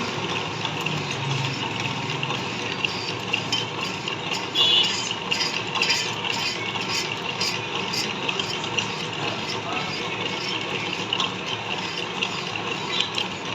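Metal lathe turning a welded metal part under a cutting tool: a steady scraping hiss with scattered ticks and clinks, loudest briefly about five seconds in.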